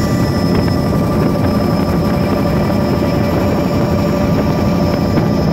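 Bell OH-58 helicopter in steady flight, heard from inside the cabin: the turbine engine and rotor make a dense, even rumble, with a steady turbine whine of several high tones on top.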